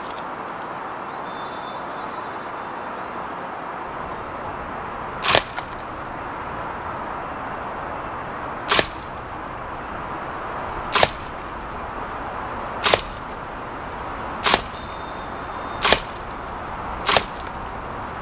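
WE MP5 SD6 gas blowback airsoft gun fired semi-automatic: seven single shots, each a sharp crack of the gas charge and the cycling bolt. The first comes about five seconds in, and the gaps between shots shorten from about three seconds to about one.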